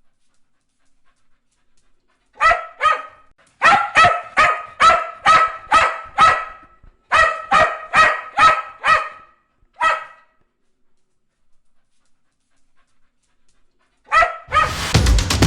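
A dog barking in quick runs of sharp barks, about two to three a second, with short pauses between the runs and a longer silence before a final pair. Music starts just before the end.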